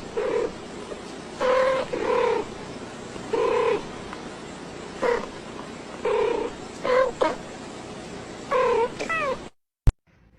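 A cat meowing over and over, short pitched calls roughly one a second over a steady hiss, stopping shortly before the end.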